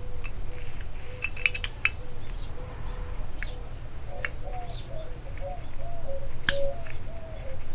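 Small metal clicks and scrapes as a tool pries at the crimped metal cap of a car trunk lock cylinder, with a quick cluster of clicks about a second in and a faint repeated squeak of metal on metal from about halfway through.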